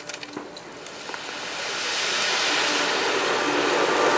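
A few sharp firework crackles, then a steady rushing hiss that grows louder from about a second and a half in: ground-level firework fountains burning.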